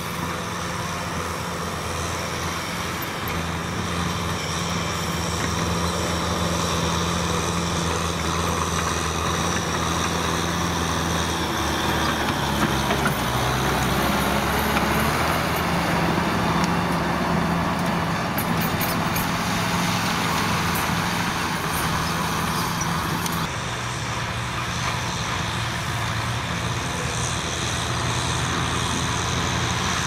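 Kubota M6040SU tractor's diesel engine running steadily under load while its rear rotary tiller churns through dry soil. The engine note shifts abruptly about three-quarters of the way through.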